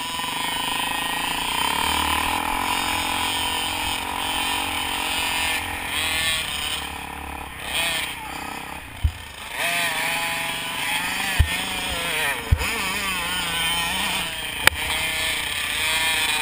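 Dirt bike engine running as the bike rides over a rough grass track, its pitch rising and falling as it revs up and down. A few sharp knocks come through in the second half.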